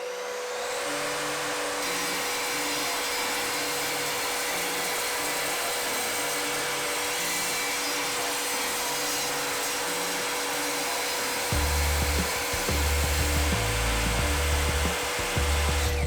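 Evolution R255SMS sliding mitre saw running at steady speed with a constant whine, cutting a thick block of tulip wood with the Evolution multi-blade. Background music with a stepping bass line plays over it, the bass getting heavier about twelve seconds in.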